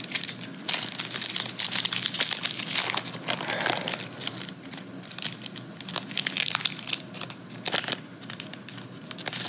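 Foil wrapper of an NBA Hoops trading-card pack being torn open and crinkled by hand, a dense run of crackles that thins out in the second half.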